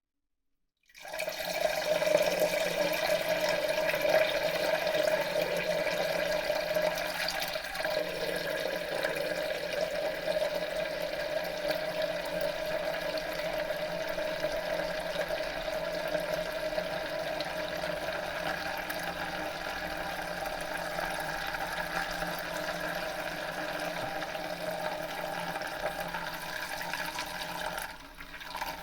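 A person urinating into a toilet bowl: a steady stream splashing into the bowl water, with a ringing tone. It starts abruptly about a second in and falters and tapers off near the end.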